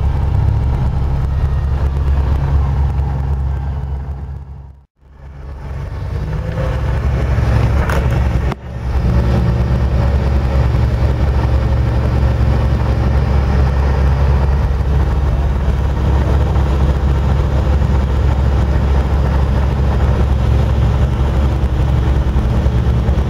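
Land Rover Series III engine running at low speed, heard from inside the cab as a steady low drone. The sound fades out and back about five seconds in, and breaks off briefly near nine seconds.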